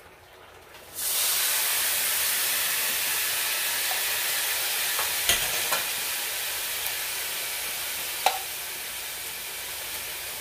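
Water poured onto browned rice in a very hot pan, bursting into a loud sizzling hiss about a second in that slowly dies down, with a few sharp taps partway through.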